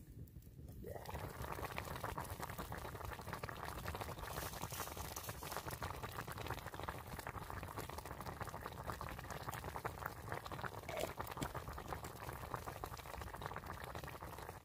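Food cooking over a campfire: a steady bubbling, crackling hiss that starts about a second in and cuts off suddenly.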